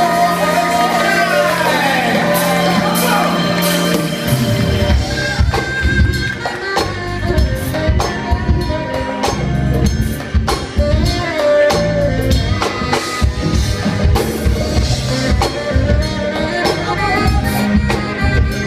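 Live band with singers: voices hold notes over a sustained bass note for about four seconds, then the drum kit comes in with a steady beat under the singing.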